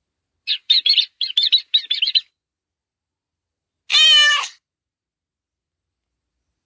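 A bird chirping rapidly for about a second and a half, followed about four seconds in by a single cat meow.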